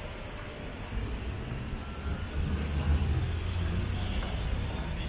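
Street traffic on a wet city avenue: a low engine rumble that swells about halfway through, with a high hiss that comes and goes several times.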